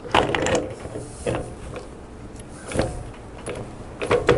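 Metal-on-metal clinks and knocks as the kickstarter cover is worked onto a Harley-Davidson transmission case: a short clatter at first, then a knock every second or so, with a sharper double knock near the end.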